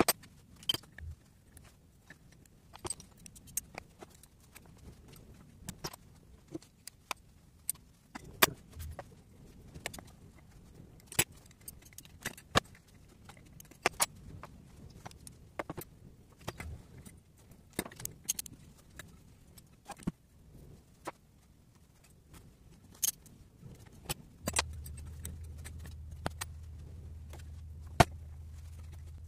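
Metal hand tools clinking and clattering in irregular sharp knocks: a wrench and socket ratchet working the nuts as studs are unscrewed from a cylinder head, and loose steel studs and nuts being set down. About 24 seconds in, a steady low hum starts and carries on to the end.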